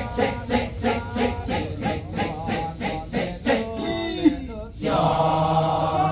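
Kecak chorus of many male voices chanting the rhythmic interlocking "cak-cak-cak", about four to five sharp strokes a second. The chanting breaks off with a sliding vocal cry around four seconds in, and the chorus then holds a long sustained chord near the end.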